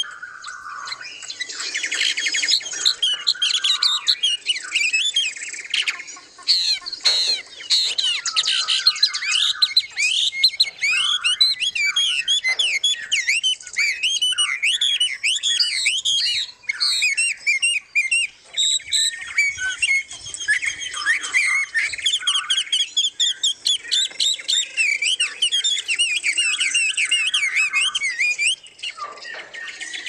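A chorus of several songbirds calling and singing at once: a dense, continuous tangle of quick chirps, whistles and squawky notes that thins briefly near the end.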